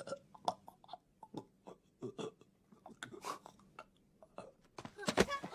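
Faint, scattered clicks and rustles at irregular intervals, with one heavier thud near the end.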